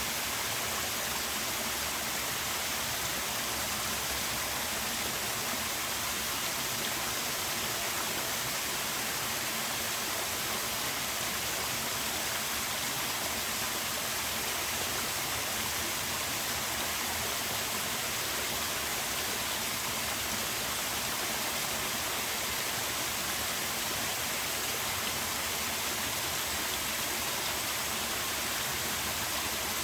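Small waterfall with a modest flow of water, splashing steadily in an even, unbroken rush.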